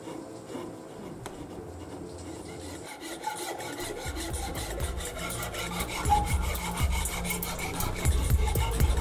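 Steel file rasping back and forth along a cherry-wood spoon handle in quick, repeated strokes. They start about three seconds in and grow louder. Before that come fainter sounds of a gouge cutting the wood.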